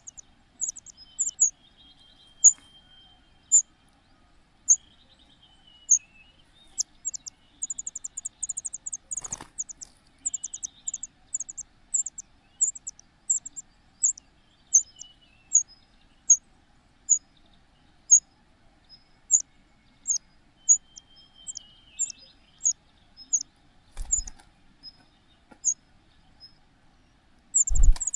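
Small bird chirping: short, high, thin chirps about once a second, with a quick run of them around eight seconds in. Fainter lower gliding calls come in places, and there are two soft knocks.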